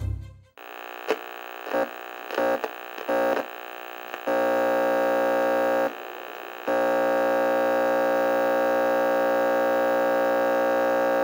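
Electronic glitch sound effect: a harsh, buzzing hum that stutters in several short bursts over the first few seconds, then settles into a steady buzz, cutting out briefly about six seconds in. A low thump sounds right at the start.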